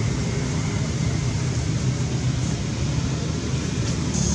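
Steady low rumbling noise with a hiss above it, even throughout.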